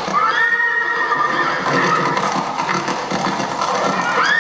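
Horse whinnying in a film soundtrack played over a hall's loudspeakers: one long call that rises and then holds at the start, and another beginning near the end.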